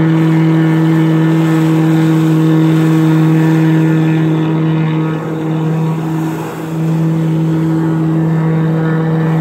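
Jet ski engine driving a flyboard through its hose, running steadily at high revs over the hiss of the water jets. The engine note wavers and drops briefly about halfway through, then comes back up.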